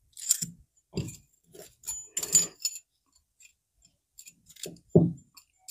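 Close-up handling noise from taking apart a valve refacer's driver head spindle: irregular small clicks, knocks and rustles of metal parts and fabric, with a short quiet gap in the middle.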